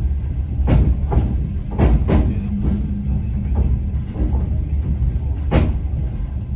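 Passenger train carriage rumbling along the track, with the wheels knocking over rail joints: a handful of sharp clacks, some in quick pairs, over a steady low rumble.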